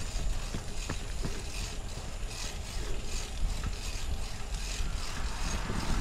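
Bicycle rolling along a path, its freewheel and drivetrain ticking and rattling about twice a second, with a few sharper clicks and wind rumbling on the microphone.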